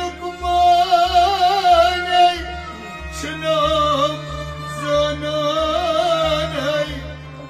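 Kashmiri Sufi song: a man's voice singing a wavering, ornamented line over harmonium and rabab, with a steady low beat repeating a little under twice a second.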